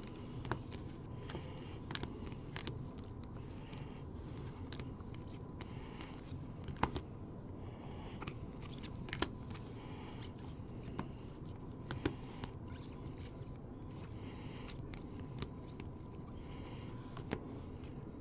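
Trading cards in rigid clear plastic holders being handled and sorted: scattered light clicks and taps of plastic against plastic, with soft sliding scrapes, over a steady low hum.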